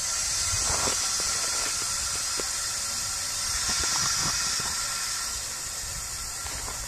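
Compressed air hissing steadily into a pneumatic golf-ball cannon's air chamber as it recharges toward firing pressure, with a few faint ticks.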